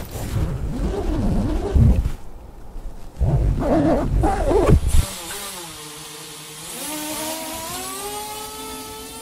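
Cinematic intro sound design: two deep, sweeping rumbles, then a swell of pitched tones that glides upward over a high hiss, leading into the music.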